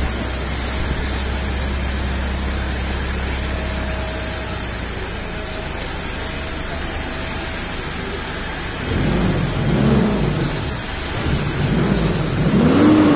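A vehicle running, heard as a loud, steady rushing noise. In the last few seconds the engine pitch rises and falls a few times.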